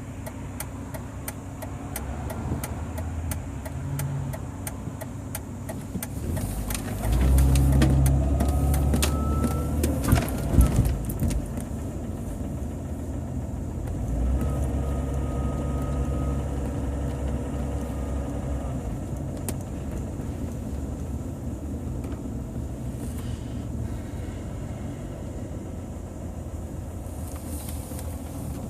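Jeep Grand Cherokee WJ's 4.0-litre straight-six running under way, with a thin high whistle that comes and goes twice. The owner suspects a failing water pump. A few sharp knocks sound partway through.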